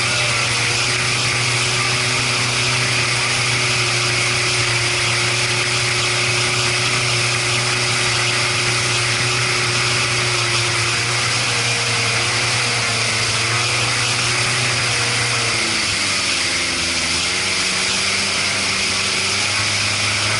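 Boat engine running steadily under a constant hiss. About three-quarters of the way in it slows for a few seconds, its pitch dropping, then picks up again.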